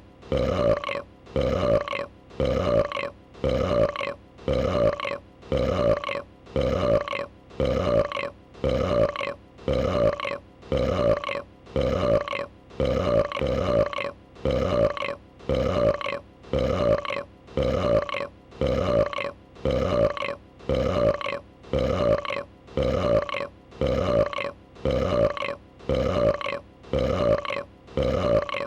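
A female dragon's burp, one short pitched belch repeated over and over as an identical loop, about once a second.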